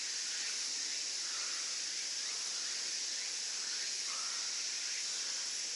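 Steady high-pitched chirring of an insect chorus, even throughout, with a few faint short rising chirps underneath.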